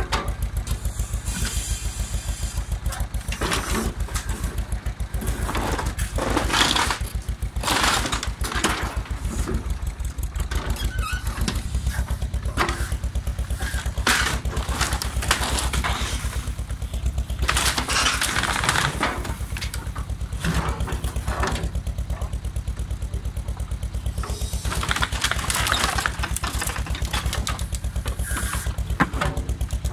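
Ursus C-330 tractor's two-cylinder diesel engine running with a steady low chugging beat while a tractor-mounted excavator arm breaks down an old wooden shed. Timber boards crack, splinter and crash in several loud bouts as the shed gives way.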